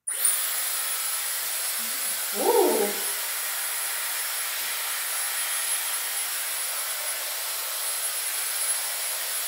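Dyson Airwrap hair styler with a brush attachment switching on suddenly and blowing steadily at its lowest airflow setting with no heat: a constant rush of air with a thin, high, steady whine.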